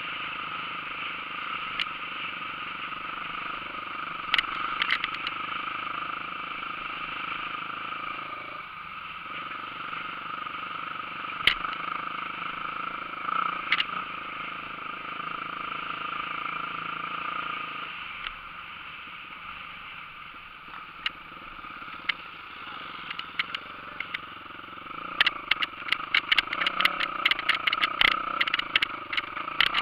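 Off-road motorcycle engine running as the bike is ridden along a dirt track, with an occasional knock. About 25 seconds in it gives way to a rapid clatter of knocks and rattles as the bike climbs a rough, overgrown trail.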